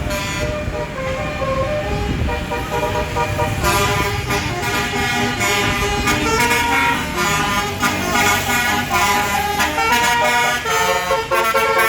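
Bus with a Basuri musical air horn playing a tune of stepped notes, over the rumble of the bus engine. The melody gets fuller and louder about four seconds in.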